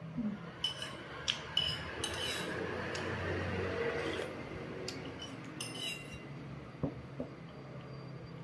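Metal spoon clinking and scraping against a porcelain soup bowl: several sharp clinks in the first two seconds and a few more around five to six seconds in.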